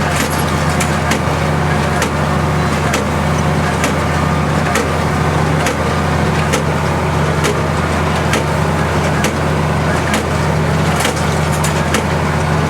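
Tractor engine running steadily at about 1800 rpm, driving a Hesston 4550 small square baler. The baler knocks about once a second as its plunger packs hay into bales.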